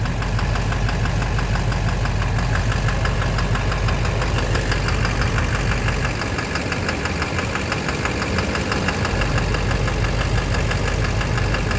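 Duramax LMM 6.6-litre V8 turbodiesel running with a quick, steady knock, several strikes a second, heard from underneath by the oil pan. The owner takes the knock to sound like the bottom end.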